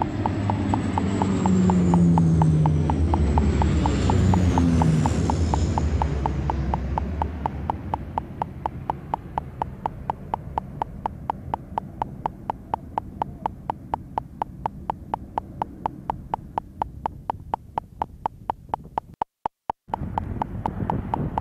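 Canadair water bombers' turboprop engines passing low overhead, loud at first, their pitch falling as they go by and then fading into a distant drone. A rapid, evenly spaced clicking runs throughout and stands out once the engines fade.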